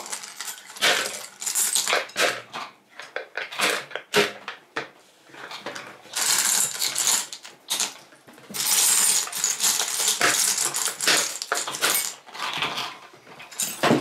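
Small decorative pebbles clicking and clattering as they are dropped into a plastic bottle, in an irregular run of clicks that thickens into a denser rattle midway.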